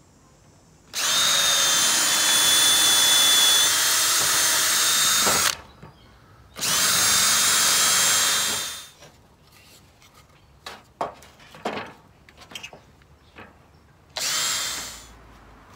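Cordless drill boring into a wooden 2x4 over a scrap block. It runs three times: a long steady run of about four and a half seconds, a shorter run of about two seconds that winds down at its end, and a brief run near the end. Small knocks of handling come in between.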